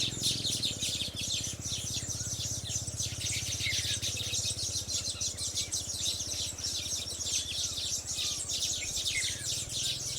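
Baya weavers chattering: a dense, unbroken twittering of many short, rapid chirps, over a steady low hum.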